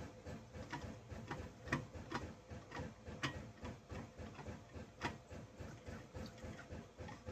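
Chainsaw crankshaft being turned and rocked by hand in its bearings, giving faint, irregular light clicks and ticks. The crank has some side-to-side end play, more than the owner would like, though he is unsure whether that is normal for this saw.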